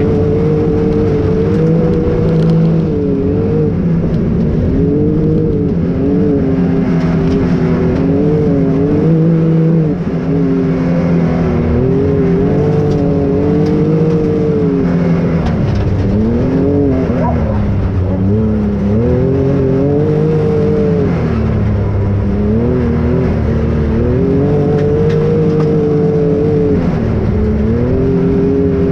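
Can-Am Maverick XRC 1000 side-by-side's Rotax V-twin engine running under constantly changing throttle, its pitch rising and falling again and again over a low rumble. There is a short dip in loudness about ten seconds in.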